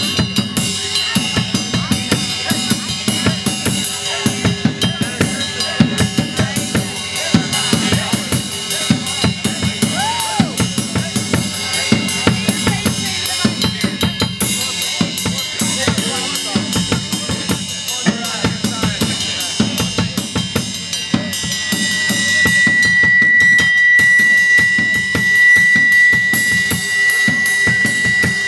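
A live rock band playing: a drum kit beating fast and hard under electric guitar. About two-thirds of the way through, a single high steady tone comes in and holds while the music gets louder.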